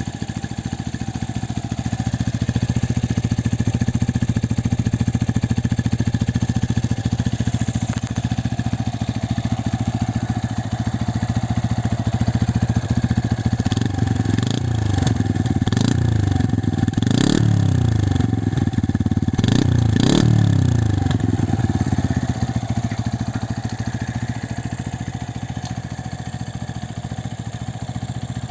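Brixton Felsberg XC motorcycle's single-cylinder engine with its stock exhaust, idling steadily. About halfway through, the throttle is blipped several times in quick succession, the revs rising and falling, before it settles back to idle.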